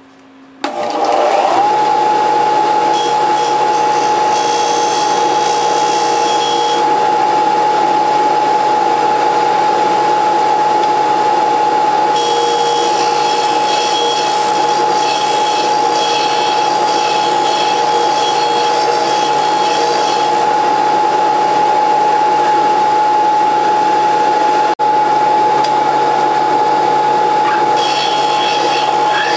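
Porter-Cable disc sander switched on about half a second in, spinning up within a second to a steady high whine. A snapped steel drill bit is pressed against the abrasive disc in three passes, each adding a harsh grinding hiss, to grind its broken end flat.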